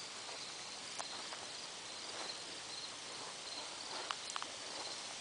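Faint, steady chirping of crickets, with a few light clicks about a second in and again around four seconds in.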